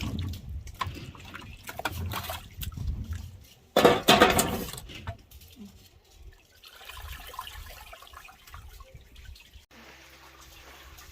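Water splashing and trickling, with a louder rush of pouring about four seconds in.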